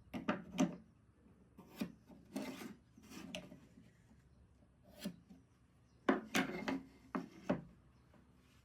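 Wood being scraped or rubbed by hand: irregular short strokes in loose clusters, the strongest about half a second in and again around six to seven and a half seconds in.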